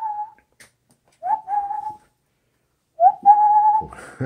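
Airedale Terrier puppy whining: three drawn-out whines, each sliding up briefly and then held at one pitch, the last the longest and slightly wavering.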